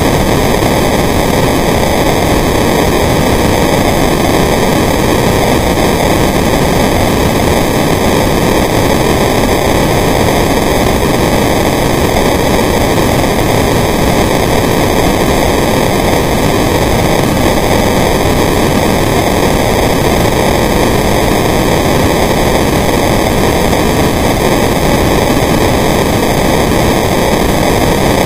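Steady, loud hiss and rumble of underwater ambience picked up by a camera in a waterproof housing, unchanging throughout with no distinct events.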